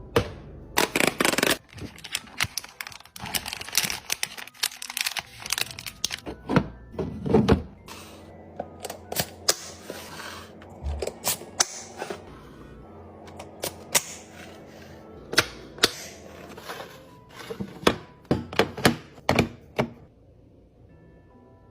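Food packaging and plastic storage containers being handled, set down and snapped shut: an irregular run of clicks, knocks and taps, quieter near the end.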